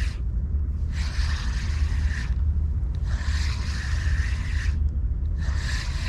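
Spinning reel being cranked in three spells of a second or two each, a whirring with a steady high whine, as a lure is retrieved after a cast. Heavy low wind rumble on the microphone underneath.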